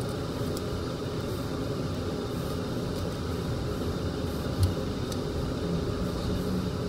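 Steady low hum of background noise, with a few faint ticks from a plastic stick stirring two-part glue in a plastic lid, and a soft thump about four and a half seconds in.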